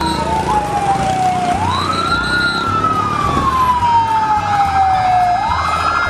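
Fire engine siren wailing loudly over a low rumble. The pitch falls, rises sharply about a second and a half in, falls slowly for several seconds, then rises again near the end.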